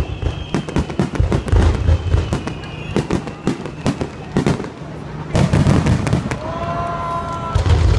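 Aerial fireworks shells bursting overhead in a dense run of crackling and pops, with heavier booms about five and a half seconds in and again near the end.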